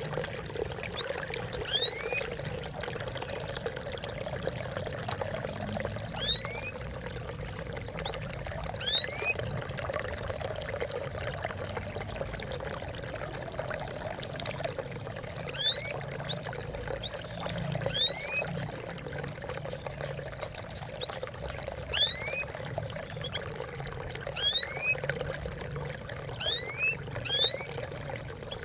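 Trickling, babbling water with short high plinks of drops that rise in pitch, coming every second or two over a steady splashing.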